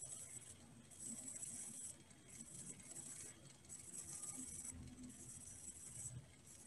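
Near silence: faint room tone, with a soft high hiss that pulses on and off about every second and a half.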